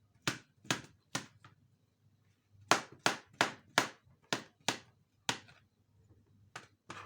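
Knife tapping down on a cutting board as a banana is cut into small pieces: about a dozen sharp chops in uneven runs, with a short pause after the first four.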